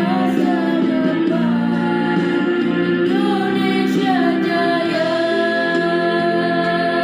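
A woman singing a slow melody with held, wavering notes over instrumental backing music.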